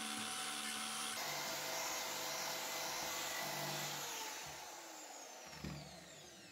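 Corded electric drill spinning a brush wheel against the sheet-metal housing of an old crank telephone: a steady high whine with scraping. About four seconds in the drill is let off and its whine falls in pitch and fades as it spins down, with a single knock near the end.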